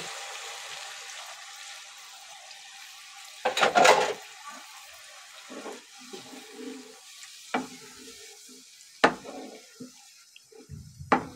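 Yogurt and green-chili mixture poured into a hot pan of frying chicken, with a hiss that fades over the first few seconds and a louder burst about four seconds in. Then a wooden spoon stirs and scrapes through the thick sauce, knocking sharply against the pan three times.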